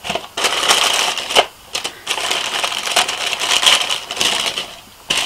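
Tissue paper rustling and crinkling as it is pulled open by hand, in bursts that fade out near the end.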